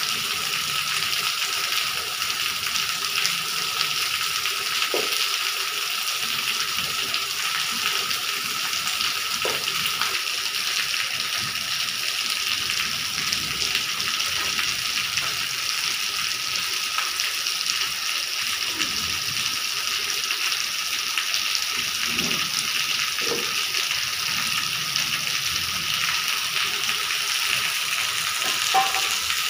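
Steady rain falling on a wet tiled courtyard and trees, with rainwater pouring off a roof edge and splashing onto the ground.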